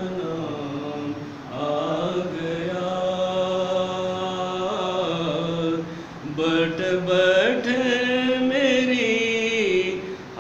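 A man's solo voice chanting a naat, a devotional poem in praise of the Prophet Muhammad, without accompaniment. He holds long notes with wavering ornaments and breaks briefly about a second and a half in and again around six seconds.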